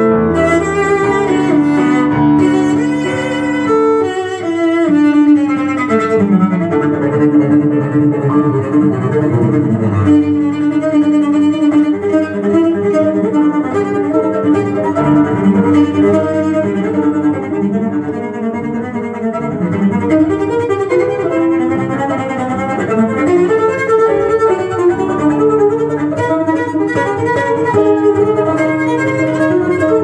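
Cello music played from a vinyl LP through hi-fi loudspeakers: a bowed cello line with accompaniment, continuous and melodic.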